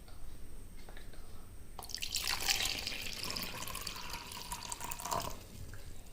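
Water pouring into the plastic water chamber of a small electric facial steamer. It starts about two seconds in and stops about five seconds in, after a few faint handling clicks.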